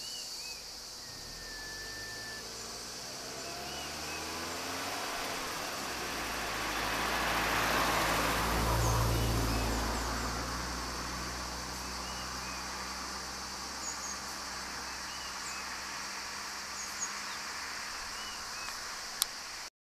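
A car drives past, its engine and tyre noise rising to a peak about halfway through and then fading away. Insects keep up a steady high chirring throughout, with occasional bird chirps, and there is a single sharp click near the end.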